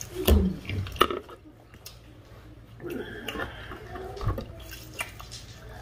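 Close-up wet eating sounds of saucy seafood boil: lip smacking and slurping, with a few sharp clicks and knocks.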